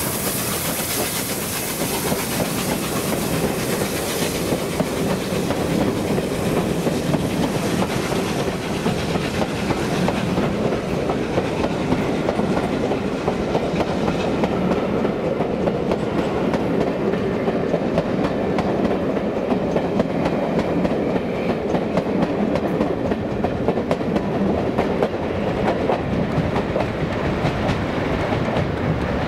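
Peppercorn A1 Pacific steam locomotive 60163 Tornado and its train of coaches rolling past, wheels clattering steadily over the rail joints. A high hiss in the first ten seconds or so fades as the coaches follow the engine by.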